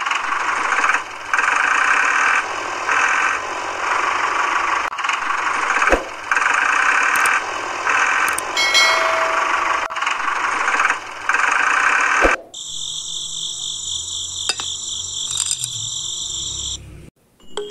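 Small electric motor of a homemade toy tractor running in short starts and stops for about twelve seconds, with a couple of sharp clicks. It then changes to a higher-pitched steady whine that stops shortly before the end.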